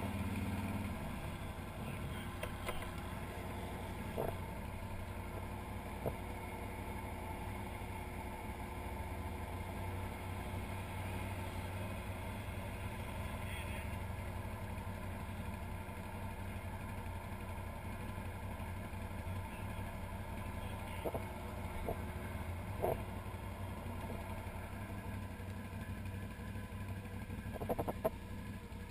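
Can-Am Outlander 1000 XT-P ATV's V-twin engine idling steadily, with a few short knocks now and then.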